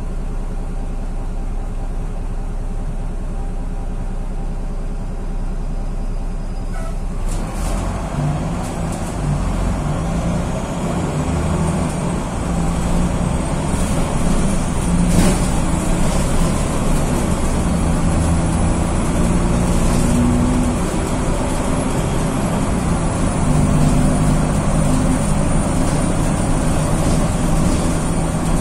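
Diesel engine of a rear-engined VW 26.330 OTA city bus idling steadily, then pulling away about seven seconds in and running louder under load as the bus accelerates. A thin high whine rises with it and holds.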